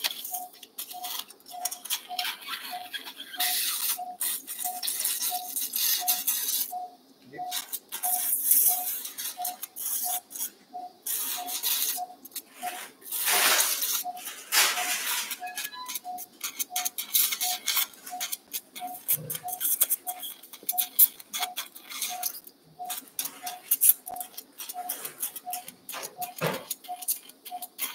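Anaesthesia monitor beeping steadily, about one and a half beeps a second, in time with the patient's heartbeat. Over it, a surgical suction tip hisses and slurps in spells as saline lavage fluid is drawn out of the open wound.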